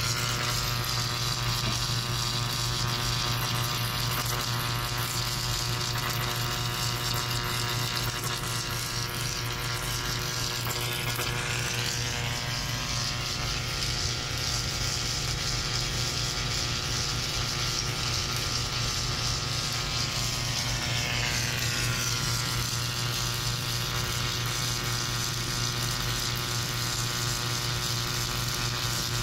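Submerged arc welding tractor running through a weld pass under flux: a steady electrical hum and motor whir with a continuous hiss from the arc buried under the flux.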